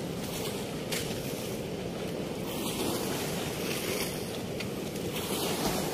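Steady rush of water pouring through a barrage weir's floodgates.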